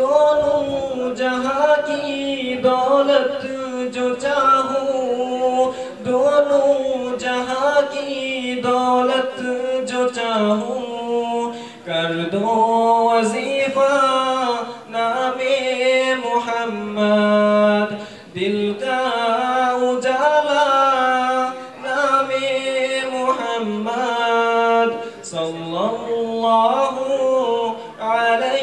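A young man singing an Urdu ghazal solo and unaccompanied into a microphone, in long held notes that glide between pitches.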